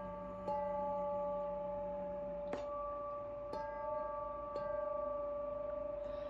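Tall square metal chime bars struck with mallets, four strikes about a second apart, each renewing overlapping ringing tones that sustain between strikes.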